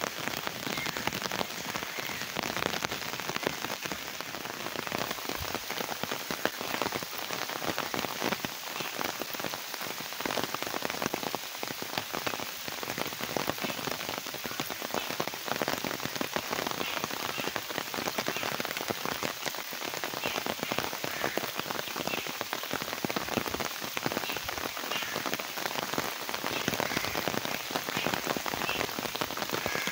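Steady rain falling into puddles of standing water on a flooded lane and grass: a dense, even patter of drops hitting water.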